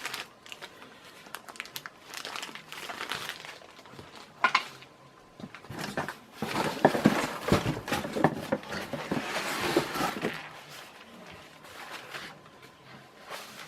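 A bag of fan hardware being handled and opened: irregular crinkling and rustling with small clicks, busiest in the middle.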